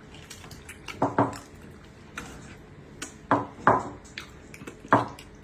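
Utensils and dishes clinking and knocking during a meal: about five short, sharp clinks, in pairs a second apart and one near the end.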